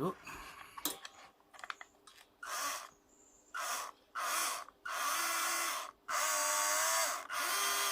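Electric motor and gears of a WPL B36 1/16 RC truck run in six short throttle bursts. Each burst is a whirring whine that rises in pitch as the motor spins up and wavers while held. This is a test of a slightly larger replacement pinion gear, fitted because the small original gear did not bite and slipped.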